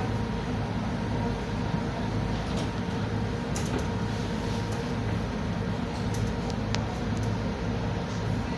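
Boat engine running steadily, a continuous low drone with a faint higher hum, heard from aboard the boat, with a few light clicks.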